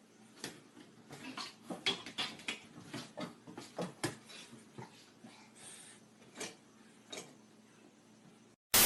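A run of light clinks and taps, like small hard objects or dishes knocking together, about a dozen spread irregularly over several seconds, then a short loud burst near the end that cuts off abruptly.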